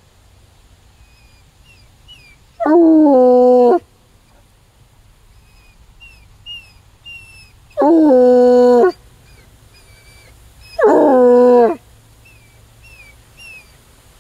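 Bluetick coonhound baying: three loud calls of about a second each, a few seconds apart, each dipping in pitch at its start and then holding one steady note.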